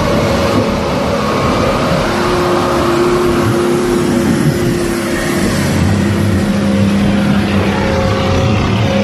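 A four-wheel-drive vehicle's engine running steadily as it crawls past on a muddy off-road track, its engine note changing about halfway through.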